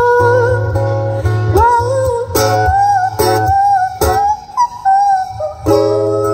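A woman singing a ballad melody to her own amplified acoustic guitar, the chords strummed and held under the voice.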